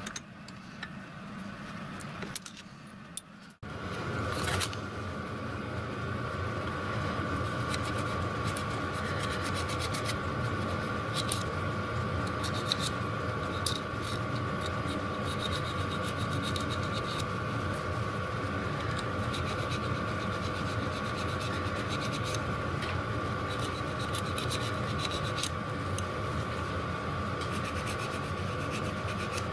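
Light metallic scraping and scattered clicks as a thin pointed tool is worked into the body of a small three-jaw lathe chuck with its jaws out, over a steady hum with a faint whine.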